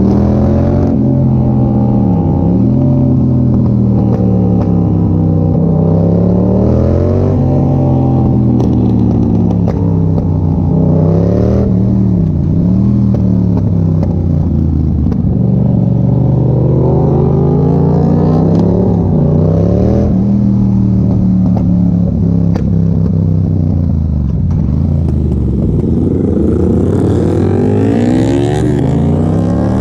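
Yamaha MT-07's 689 cc parallel-twin engine running through an Arrow exhaust with the dB killer removed, its pitch rising and falling over and over as the revs climb and drop.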